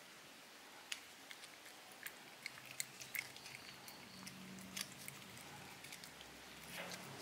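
Kitten licking and chewing creamy cat treat from a squeeze tube: faint, scattered small clicks and smacks.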